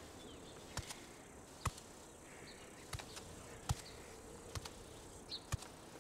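Faint insects buzzing and chirping in the background, with soft footsteps ticking about once a second.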